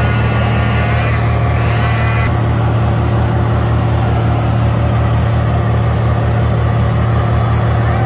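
Wood chipper's engine running at a steady drone with an even low pulse, nothing being fed into it. A higher whine rides over it for the first two seconds and then stops abruptly.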